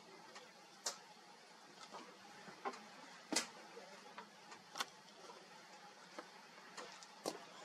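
Lion feeding on a buffalo carcass: faint, irregular sharp clicks and ticks of chewing and tearing, about half a dozen, over a low hiss.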